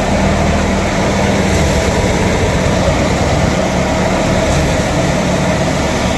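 Tractor-driven wheat thresher running steadily at threshing speed: the tractor engine drones under load and the thresher hums with a steady whine, with no pauses.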